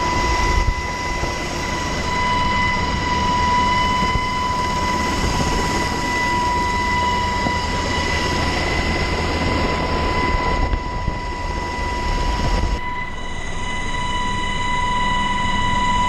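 HH-60 Pave Hawk helicopter in flight, heard from inside the cabin: a loud, steady din from the rotors and turbine engines with a steady high whine through it.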